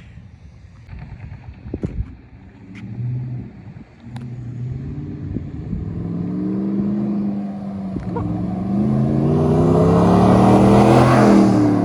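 2021 Ram 1500's 5.7-litre Hemi V8 through a Borla ATAK aftermarket exhaust, accelerating hard toward and past. It gets steadily louder, and its pitch drops as it goes by near the end.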